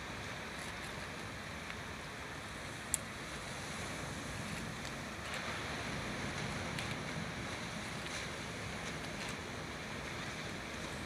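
Steady wash of ocean surf breaking on a rocky shoreline, with a single short sharp click about three seconds in.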